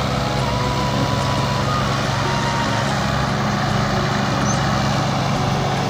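Tractor diesel engines running steadily under heavy load as an orange 480 Power Plus tows a stuck Massey Ferguson tractor and loaded trolley out of sand by chain.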